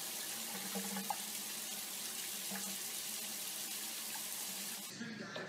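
Tap water running steadily and splashing down onto a cat sitting in a white basin. The sound cuts off sharply near the end.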